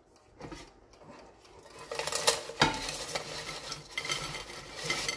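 Air-fried French fries tipped from an air fryer basket onto a ceramic plate. From about two seconds in they slide and tumble out with a scraping rustle and a few light knocks of the basket.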